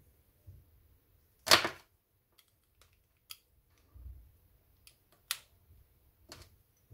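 Handling clicks and knocks from a USB desktop microphone and its cable as the cable's plug is fitted into the microphone body: a sharp, loud click about a second and a half in, another past five seconds, and a few fainter ticks between.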